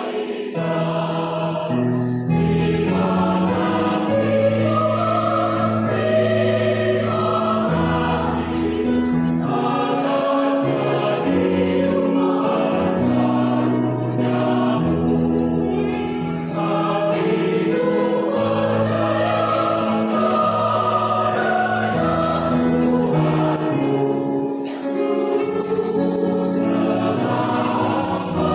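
Mixed adult choir of women's and men's voices singing a sacred choral piece in parts, with held chords over a low bass line that change every second or two and a few short breaks between phrases.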